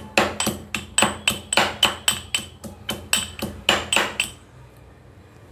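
Metal pestle pounding garlic in a small steel mortar: a steady run of ringing metallic strikes, about four a second, that stops a little over four seconds in.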